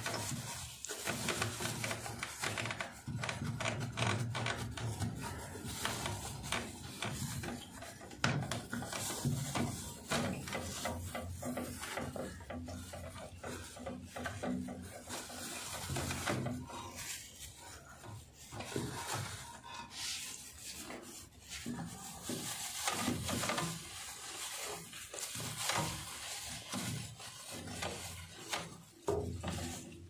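A wet cloth scrubbing and wiping a clear plastic refrigerator door shelf, in irregular back-and-forth rubbing strokes.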